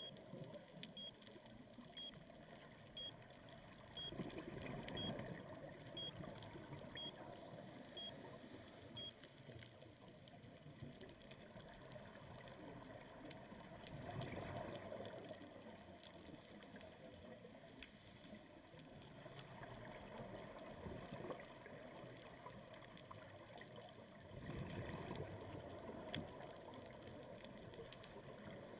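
Underwater sound of a scuba diver's breathing: a rush of exhaled bubbles about every ten seconds, with a quiet steady water hiss between. A faint electronic beep repeats about once a second for the first nine seconds.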